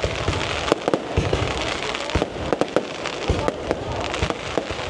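Aerial fireworks display: a dense run of bangs and sharp crackles, several a second, over low rumbling booms of bursting shells.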